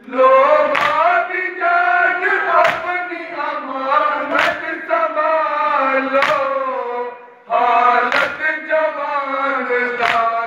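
Group of men chanting a noha in unison, with a sharp slap of matam (hands beating chests) about every two seconds keeping time. The chant breaks off briefly about seven seconds in and starts again.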